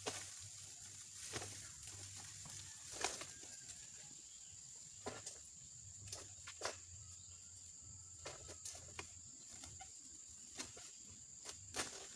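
Faint, scattered sharp clicks and snaps, about a dozen at irregular intervals, from an egrek (long-poled harvesting sickle) working at the frond bases in the crown of a tall oil palm. A steady high whine runs underneath.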